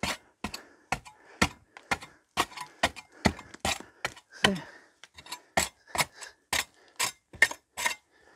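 Repeated sharp blows of a long-handled steel spade chopping hard old mortar off the brick infill of a half-timbered wall panel, in a quick, even run of nearly three strikes a second.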